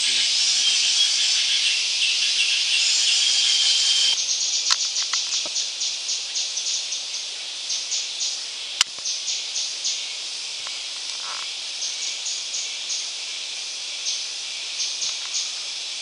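Tropical forest ambience: a dense, high insect hiss that changes abruptly about four seconds in to a series of short, high chirping notes in quick groups of two to four over a fainter hiss. A single sharp click comes about halfway through.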